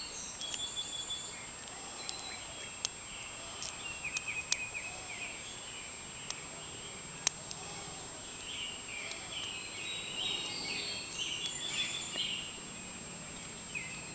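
A few sharp, sparse metallic clicks as a hook pick works the pin tumblers of an old Federal pin-tumbler padlock under tension. Behind them is a steady high hiss and small chirping in the background.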